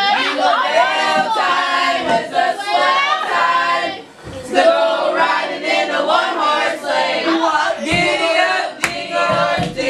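A group of children singing together without instruments, with a brief break about four seconds in.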